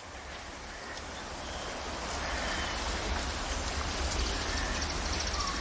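Wind blowing: a steady rushing noise with a low rumble, growing a little louder after the first second or so.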